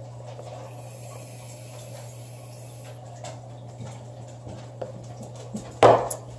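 Aerosol shaving cream being sprayed from the can: a steady hiss lasting about two and a half seconds, then a single sharp knock near the end.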